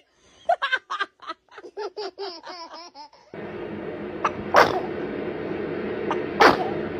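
A baby giggling in quick, short, high-pitched bursts. About three seconds in, a steady background hum comes in, and a baby sneezes twice, about two seconds apart.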